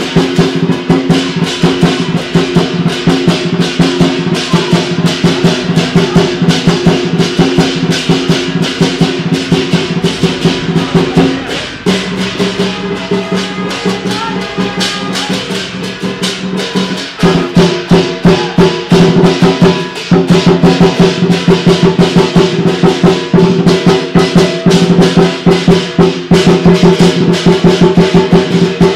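Lion dance drum and hand cymbals beating a fast, loud, driving rhythm of rapid strikes over a steady ring. The pattern shifts about twelve seconds in and again about seventeen seconds in.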